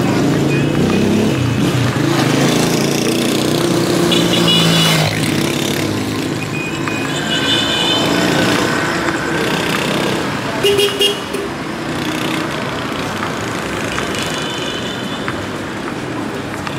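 City street traffic: cars driving past, with several short car horn toots, the loudest about eleven seconds in.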